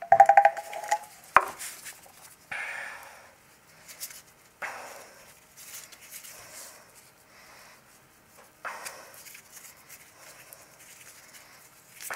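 PVC cement dauber being brushed and dabbed onto a PVC pipe fitting, with a clink and a sharp knock in the first second and a half as the dauber and fitting are handled, then short scraping strokes every couple of seconds.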